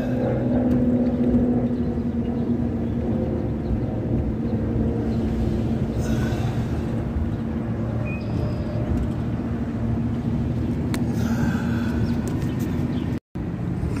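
Car engine and road noise heard from inside the cabin while driving: a steady low hum. The sound cuts out for a split second near the end.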